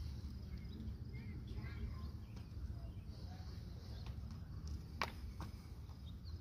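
Quiet outdoor ambience: a steady low rumble with a few faint bird chirps, and a single sharp click about five seconds in.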